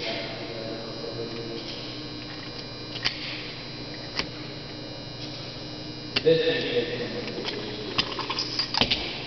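Steady electrical hum with scattered sharp metallic clicks, then a clatter of clicks and clacks about six seconds in and again near the end: the metal of a 1911 pistol, its magazine and cartridges being handled on a range bench.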